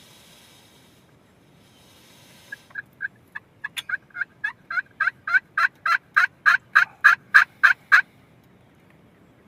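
Turkey yelping: a steady run of about twenty clear notes, about four a second, growing louder and stopping abruptly.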